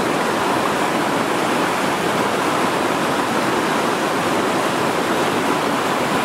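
Whitewater rushing over rock ledges in a river rapid, a steady, even roar of water with no breaks.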